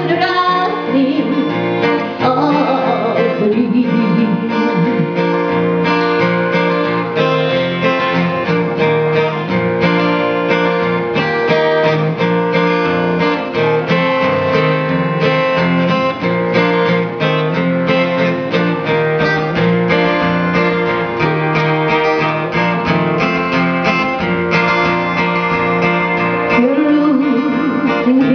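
Acoustic guitar strummed in a steady rhythm, playing a country song. A woman's voice sings short phrases near the start and again near the end.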